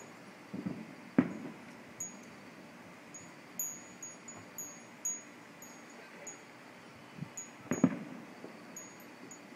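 Distant fireworks going off: two loud bangs, about a second in and near the end, with a short echo after each, and several fainter thuds between them. Short, irregular high-pitched pings ring throughout.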